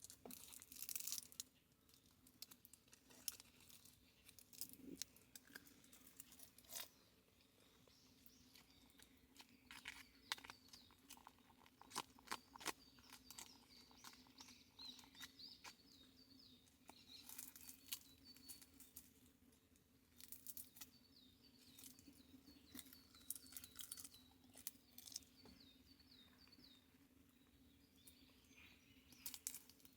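Quiet forest birdsong, a small bird giving runs of short repeated chirps in two spells, mixed with scattered small clicks and crunches of close handling.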